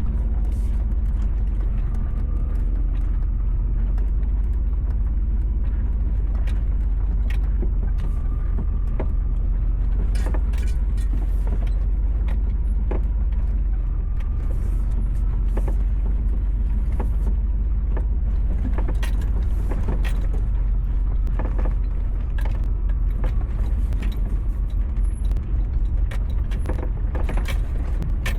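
1995 K1500 pickup truck driving: a steady low rumble of engine and tyres with frequent rattles and clicks, which come thicker near the end, as over a rough trail.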